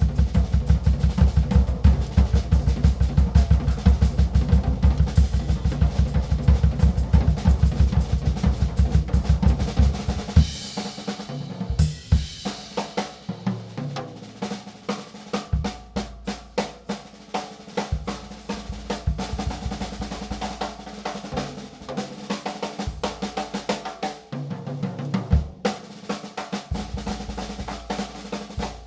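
Gretsch Name Band drum kit being played. For about the first ten seconds there is a dense run of fast drum strokes with a heavy low end. After that it shifts to a lighter, sparser groove on snare and cymbals, with spaced bass-drum hits.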